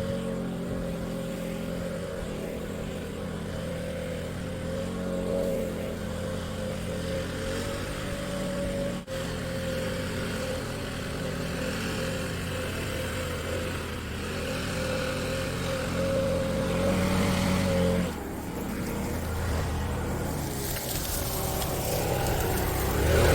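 Engine-powered leaf blower running steadily at high throttle, blowing fallen leaves and dirt off a dirt road. The engine note breaks off about 18 seconds in, then returns with a louder rush of air near the end.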